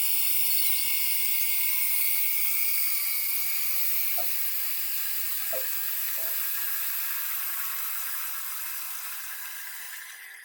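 Toilet cistern refilling through a float-operated fill valve: a steady hiss of water rushing in that slowly tapers off towards the end as the float rises and the valve closes. About halfway through there are three small plinks of water dripping.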